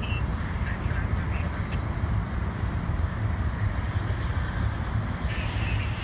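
Low, gusting rumble of wind buffeting the microphone, with a brief higher-pitched sound joining in near the end.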